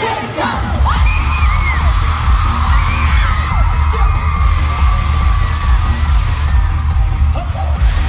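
Loud concert music over an arena sound system with a heavy bass beat that kicks in under a second in, heard from within the audience, with fans screaming and whooping over it.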